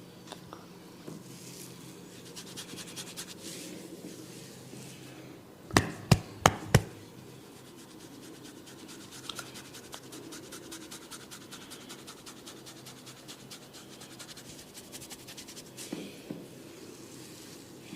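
A barber's hands massaging a head: fingers scratching and rubbing through the hair with a dense, fine crackling. About six seconds in come four loud, sharp smacks in quick succession.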